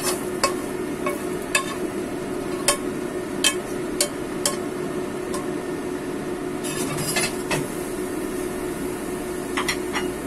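Metal spatula knocking and scraping in a non-stick frying pan as scrambled egg is scooped out onto a plate: a string of sharp clicks for the first five seconds or so, then a short clatter around seven seconds in, over a steady hum.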